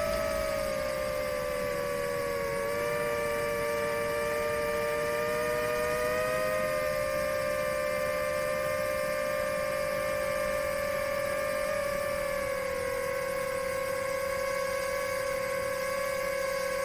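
Motors and propellers of a Rekon 5 FPV quadcopter on 6S, heard from its onboard camera, whining steadily in cruise. The pitch drops over the first couple of seconds, then rises gently and eases down slightly again about two-thirds of the way through as the throttle shifts.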